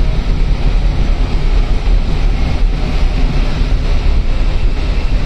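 Steady rumble and rushing noise of an MRT Putrajaya Line train running, heard from inside the passenger car.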